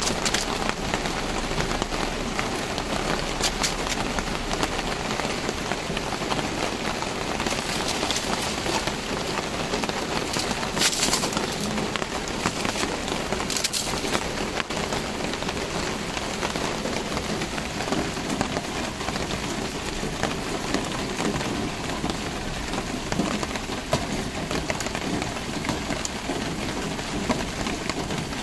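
Steady, even hiss like falling rain, with a few short sharp clicks and crackles over it.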